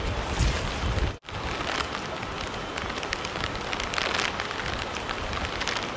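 Steady rain falling on flooded street water, an even hiss full of small drop ticks. Before a cut about a second in, wind rumbles on the microphone as well.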